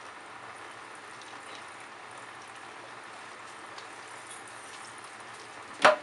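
Kitchen faucet running steadily, its stream splashing off a fan blade held under it and into a dishpan of soapy water. A short, louder sound just before the end.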